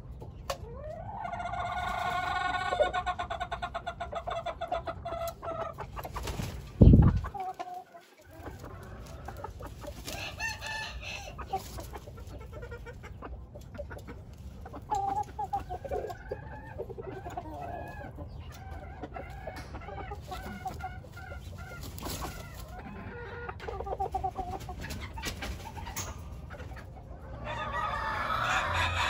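Gamefowl rooster crowing, one long call starting about a second in, followed by a loud low thump. Shorter clucks and calls from the birds follow, and another crow begins near the end.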